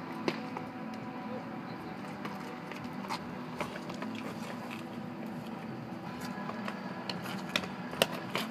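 Sneakers stepping and scuffing on asphalt as several people move about, with a few sharp taps, mostly toward the end, over a steady low hum.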